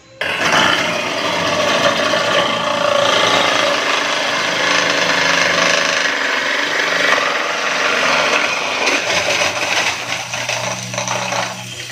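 Ice crusher running and grinding ice, a loud, dense grinding noise that starts suddenly and dies down after about eleven seconds.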